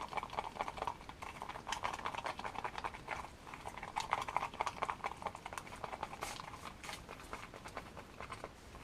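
Thickened polyester resin, loaded with Q-cell microballoons and chopped glass strands, being stirred and scraped in a mixing pot: rapid gritty scraping ticks in spells of about a second, with one sharper scrape a little after six seconds in.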